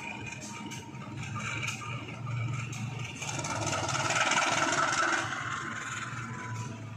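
Diesel-electric locomotive engine running with a steady low hum as the train approaches at a distance. A swell of rushing noise builds about three seconds in and fades again near the end.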